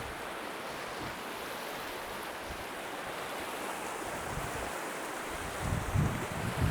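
Steady rush of a river's flowing water, with wind buffeting the microphone in low gusts a few times in the second half.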